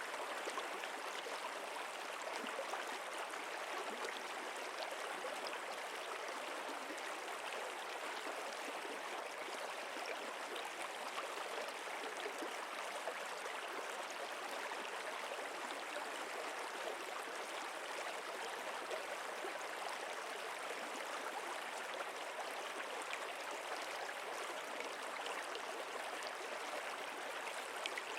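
Flowing water of a stream, a steady, even rushing and gurgling with no breaks.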